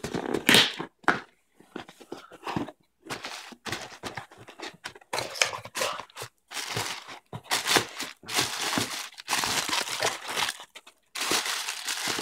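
Cardboard shipping box being handled and opened, with clear plastic packing crinkling and rustling as hands dig through it: irregular bursts of crackling and scraping that start and stop.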